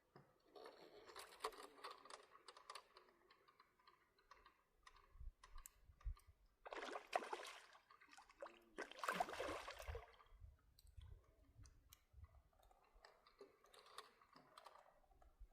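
Faint clicking and rustling handling noises in a few short spells, some louder in the middle.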